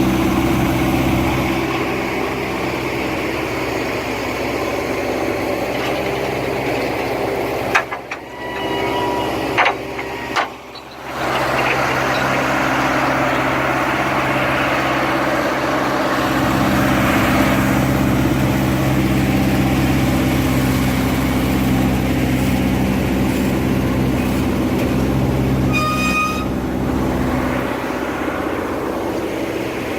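Heavy engine of old construction machinery running steadily, with two brief drops in level about 8 and 11 seconds in and a short high whistle-like tone near the end.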